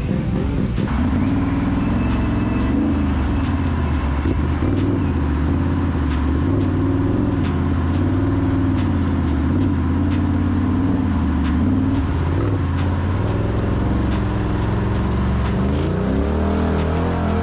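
Motor vehicle engine running at a steady drone, its pitch wavering slightly, with a short rise in pitch near the end.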